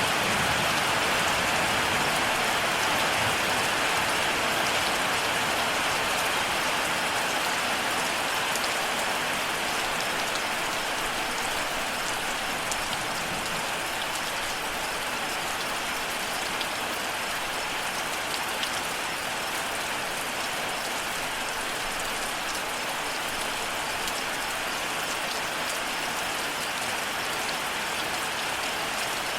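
Steady rain falling, a dense even hiss of raindrops on surfaces, easing slightly over the first ten seconds and then holding steady.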